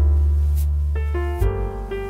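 Background music: sustained chords over a deep bass, with the chord changing about a second in.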